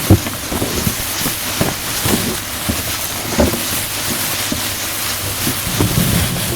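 Storm sound effect improvised from household objects: a steady rain-like hiss with scattered taps and knocks, a louder knock right at the start and another about three and a half seconds in.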